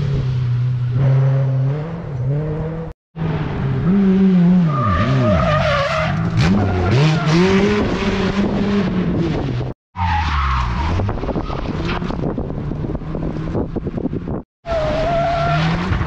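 Rally car engines at full throttle, the revs climbing and dropping sharply through gear changes and lifts, with tyres skidding. The sound cuts out briefly three times, and a different car follows each cut.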